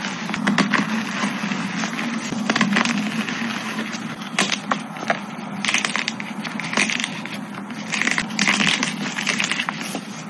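Blocks of dyed gym chalk crunching and crumbling as they are squeezed and broken apart in bare hands: a dense run of small crackles and crunches, with louder crunching bursts in the second half.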